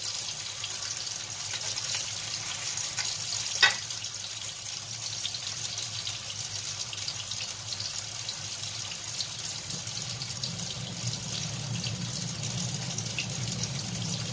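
Tofu slabs frying in oil in a nonstick pan, a steady crackling sizzle. There is a single sharp click a few seconds in, and a low hum grows about ten seconds in.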